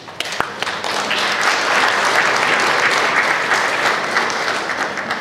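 Audience clapping, a dense patter of many hands that swells about a second in and eases off near the end.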